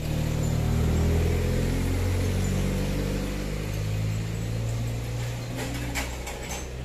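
Low mechanical hum of a running engine, several steady low tones together, loudest about a second in and slowly fading. A few brief faint clicks near the end.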